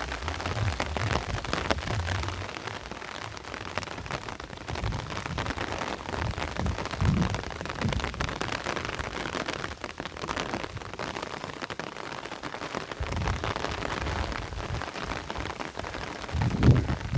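Light rain pattering on the ground and vegetation as a thunderstorm arrives, with low rolls of thunder rumbling in several times. The loudest roll builds near the end.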